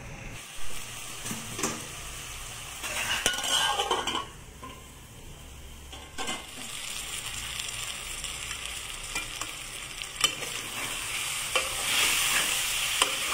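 Chicken and spice masala sizzling as they fry in a metal pot, with a metal spoon stirring and now and then knocking against the pot. The sizzle grows louder near the end.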